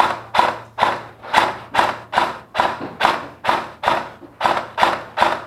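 Footsteps at a brisk, even pace of about two and a half steps a second, each a thud on a hard surface.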